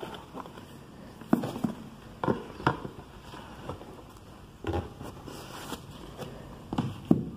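Books being handled and set down on a stack: soft knocks of covers against other books, with rubbing and rustling between, in several small clusters; the loudest knocks come about a second and a half in and near the end.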